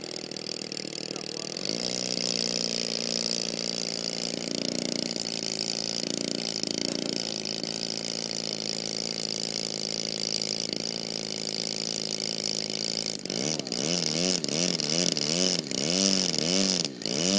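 Opposed-twin two-stroke petrol engine of a large radio-controlled Yak-54 model aeroplane idling steadily on the ground, with a couple of short throttle blips. From about 13 seconds in the throttle is pumped up and down repeatedly, a little under twice a second, the engine note rising and falling with each blip.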